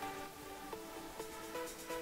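Quiet background music: a soft melody of held notes changing every half second or so.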